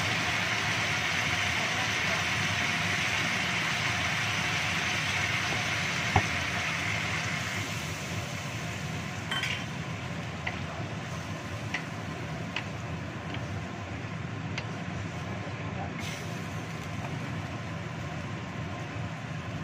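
Chicken feet cooking in sauce in a wok over a gas flame, a steady hiss that eases off after about seven seconds. A wooden spatula stirs them, with a sharp knock about six seconds in and several light taps against the wok later.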